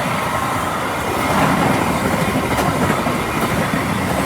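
A double-deck passenger train passing the crossing, giving a loud, steady wheel-on-rail noise with a few clicks.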